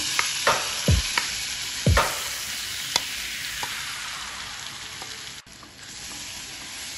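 Marinated paneer cubes and vegetables sizzling as they hit hot oil in a metal kadai, with several sharp knocks against the pan in the first three seconds. The sizzle dies down to a softer hiss after about five seconds.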